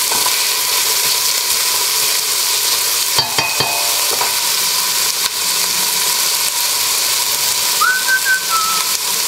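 Chopped onions and celery sizzling as they sweat in a hot stainless steel stockpot, stirred with a wooden spatula, with a few knocks of the spatula on the pot about three seconds in. A short whistled note near the end.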